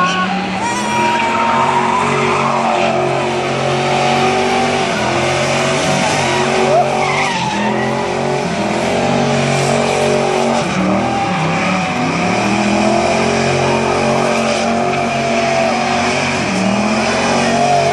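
Semi truck's diesel engine revving hard while its tyres squeal and spin through a smoky burnout. The engine pitch rises and falls over and over, with the tyre squeal running on underneath.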